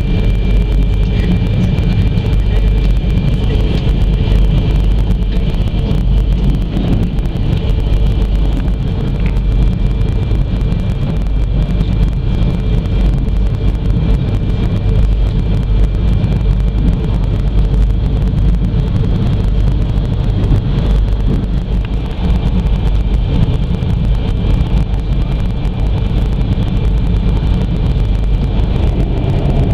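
Steady low rumble of a moving train heard from inside the carriage, with a thin steady whine held above it.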